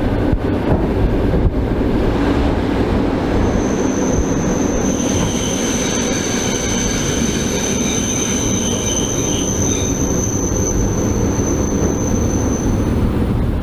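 Old suburban electric train heard from its vestibule through an open, unglazed window: the steady running noise of the wheels on the rails, with a high, steady wheel squeal that starts about three seconds in and stops near the end, as the train slows to arrive at a station.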